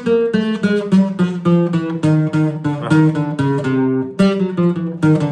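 Classical acoustic guitar played note by note through a chromatic scale, single plucked notes about four a second stepping by semitones.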